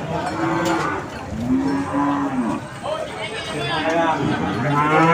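Cattle mooing: several calls, some overlapping, the longest an arching moo about one and a half seconds in.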